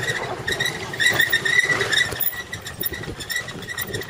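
Motor scooter riding past on a dirt track, its small engine and tyres loudest between about one and two seconds in, with a steady high whine running underneath.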